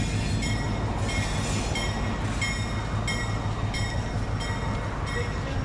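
EMD SW1500 diesel switcher locomotive pulling away, its twelve-cylinder EMD 645 engine running with a steady low rumble. Its bell rings about once every 0.7 seconds throughout, the usual warning as a locomotive moves off.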